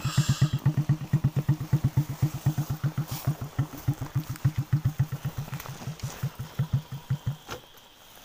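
Small motorcycle engine idling roughly on its own, its slow firing beats getting slower and weaker until it dies out about seven and a half seconds in.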